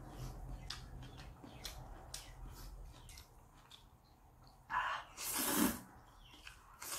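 Instant noodles being eaten with chopsticks: small wet chewing clicks, then a loud, noisy slurp about five seconds in as a mouthful of noodles is sucked up.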